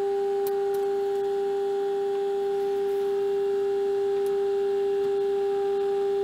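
Hallicrafters S-120 shortwave receiver's speaker sounding the signal generator's test tone: one steady, even pitch with a fainter overtone above it. The receiver is tuned to the generator's 1400 kHz signal and its output is being peaked by ear during alignment of trimmer C1.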